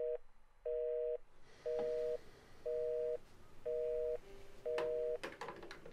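Telephone busy tone from a desk phone's handset after the caller has hung up: a two-note beep, about half a second long, repeating about once a second. Near the end the handset clatters down into its cradle and the tone stops.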